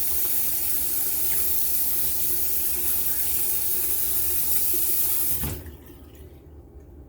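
Tap water running steadily over a shaving soap puck as it is rinsed, then the faucet shut off suddenly about five and a half seconds in.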